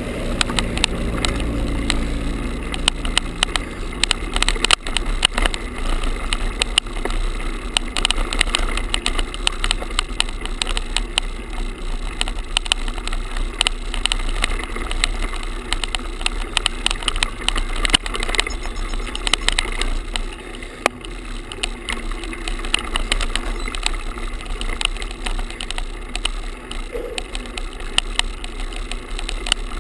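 Rattling of a GoPro camera tied to a road bike's handlebars with a shoelace, shaken by the bike rolling over rough pavement: a constant stream of clicks and buzzing over a steady low rumble.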